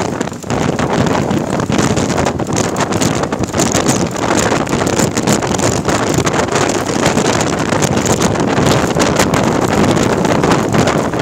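Wind buffeting the microphone of a phone filming from a moving vehicle, over the vehicle's steady running noise.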